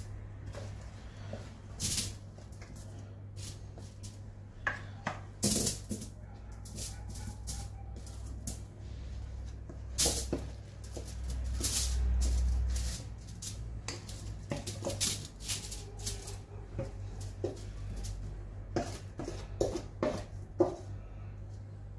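A spatula scraping and knocking against a metal mixing bowl as chunks of seasoned potato and vegetables are scooped out and dropped onto sheets of aluminium foil, with the foil crinkling. The result is an irregular run of scrapes, taps and rustles.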